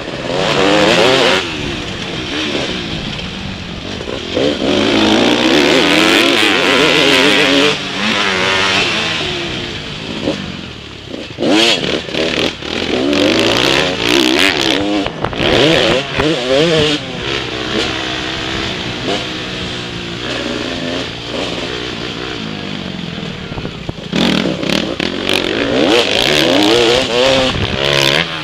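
Motocross bike engine revving hard and dropping back again and again as it is ridden around a dirt track, the pitch climbing and falling with each gear and throttle change. A run of sharp knocks and rattles comes in the middle stretch.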